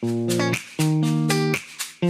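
Background music: a short plucked-string loop that repeats about every two seconds.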